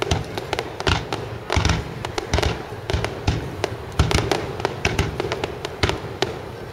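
Aerial firework shells bursting, a rapid irregular run of bangs and crackles, with a louder bang about four seconds in.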